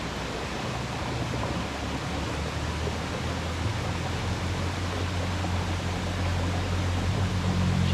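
Steady rush of running stream water, with a low engine hum coming in about halfway through and growing louder.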